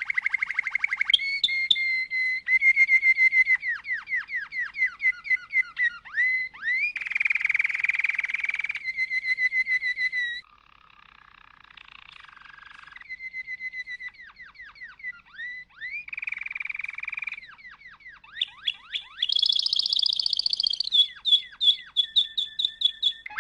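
Colour canary singing a long, continuous song of fast trills and rolls that switch to a new phrase every second or two, with a quieter, lower rattling passage about halfway through and a high, held trill near the end.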